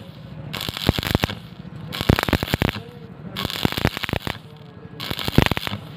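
Stick welding arc crackling and spitting as the electrode runs a fillet weld on steel plate. The crackle comes in louder surges full of sharp pops about every second and a half, with a softer hiss between them.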